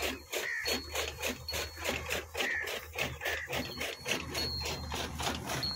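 Bull-driven iron gear drive (tokka) turning, its gears clattering in a quick, steady rhythm of about five strokes a second over a low hum.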